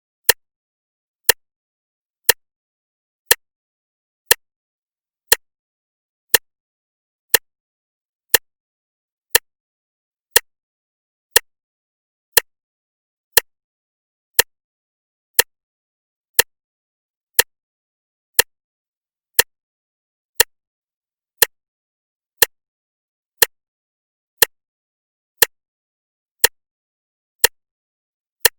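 Clock ticking once a second: sharp, even ticks with silence between them.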